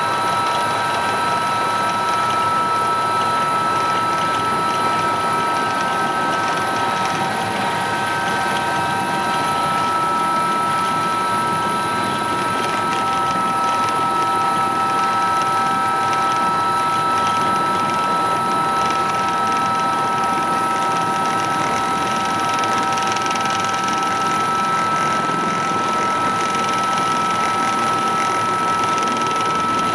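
Helicopter engine and rotor noise heard from inside the cockpit: a steady loud rush with several steady high-pitched whines, as the helicopter hovers down onto a helideck to land.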